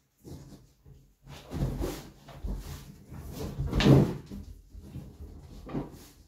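Inflated exercise balls squeaking and rubbing against each other, the wooden floor and a person's jeans as the person shifts and sits on them, with soft thumps. The irregular squeaks and scrapes start about a second and a half in and are loudest a little past halfway.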